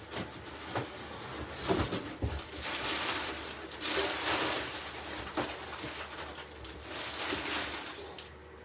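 Someone rummaging for small plastic paint containers: a handful of scattered knocks and clatters with stretches of rustling in between.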